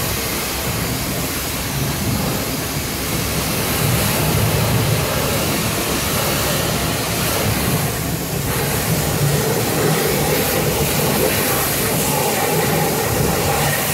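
Pressure-washer lances spraying water jets onto a car's bodywork: a steady, continuous rush of spray and pump noise.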